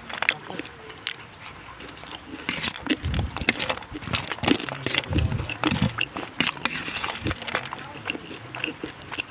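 Close-miked eating: irregular crunches, wet chewing and mouth smacks, with a few heavier low bites about three to six seconds in.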